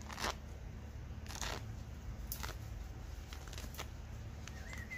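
Feathers being pulled by hand from a wood pigeon's breast: several short tearing rasps about a second apart.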